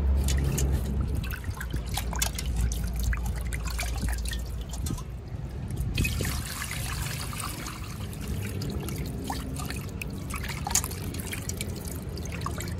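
Water sloshing and trickling in a stainless steel bowl as a slab of pork belly is washed by hand, with a knife scraping the skin at first. About six seconds in, water is poured over the meat, followed by splashing as it is rubbed clean.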